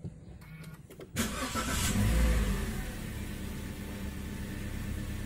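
Daihatsu Terios's 2NR-FE 1.5-litre four-cylinder engine starting by push button, heard from inside the cabin. About a second in it cranks and catches with a brief rise in revs, then settles into a steady idle that runs normally.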